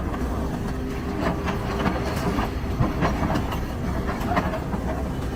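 Heavy machinery running with a steady low rumble, overlaid by irregular knocks and clatter of metal and debris.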